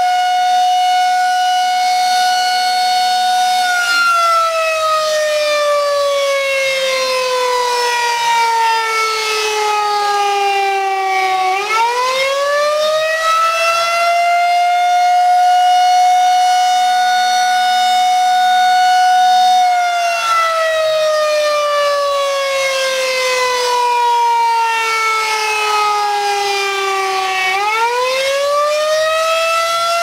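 Federal Signal 2001-SRNB rotating electromechanical siren sounding its monthly test, a single wailing tone. The pitch holds, slides slowly down over about eight seconds, then climbs back up in about three, twice over.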